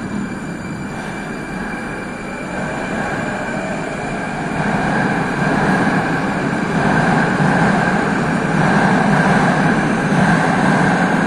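Moscow Metro train running through the station: a steady rumble of wheels and motors with a faint high whine, growing louder from about four seconds in.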